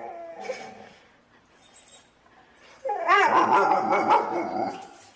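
Dog vocalizing: a short pitched call right at the start, then from about three seconds in a loud string of yips and barks, wavering in pitch, lasting almost two seconds.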